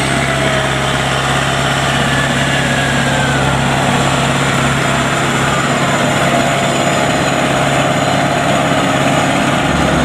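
Homemade Vietnamese combine harvester's engine running steadily and loud, with a fainter whine that slides down in pitch over the first few seconds.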